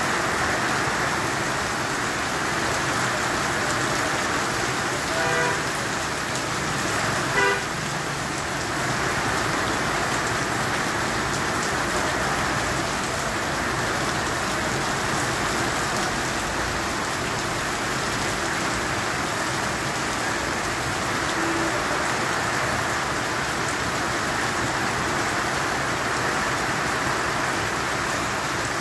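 Heavy rain falling steadily, with water pouring off a roof edge. A vehicle horn honks briefly twice, about five and seven seconds in.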